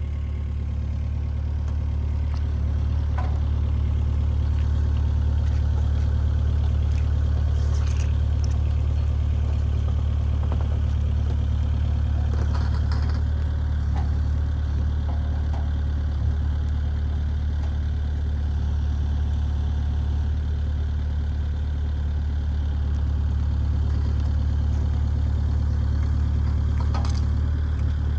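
Mini excavator engine running steadily at a low, even note, with a few faint knocks and clanks.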